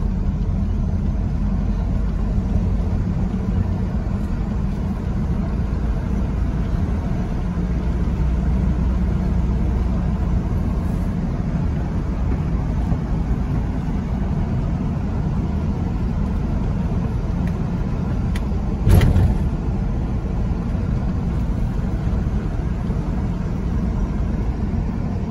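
A car driving, heard from inside the cabin: engine and tyre noise as a steady low rumble, with one short thump about three-quarters of the way through.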